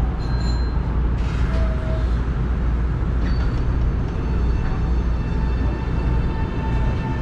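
Steady low hum inside the cab of a Nankai electric train standing at a platform, with a steady whine from the traction motors coming in about five and a half seconds in as the train starts to pull away.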